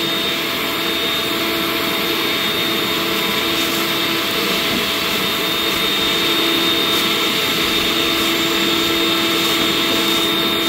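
Cordless leaf blower running steadily at full blast, a loud rush of air with a constant whine, blowing fallen leaves off a railway track.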